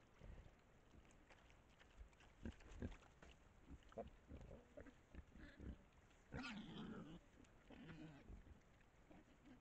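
Feral hogs feeding, with faint scattered clicks and knocks from rooting and chewing. One hog gives a louder call about six and a half seconds in and a shorter one near eight seconds.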